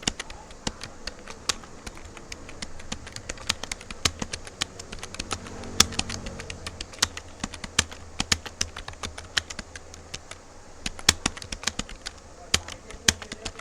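Computer keyboard being typed on quickly and steadily, many key clicks a second in an uneven rhythm, with a low hum underneath.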